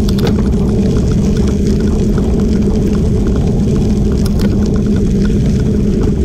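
Steady wind rumble on the microphone of a camera moving along at riding speed, with tyres rolling over a crushed-gravel trail and small scattered ticks of loose stones.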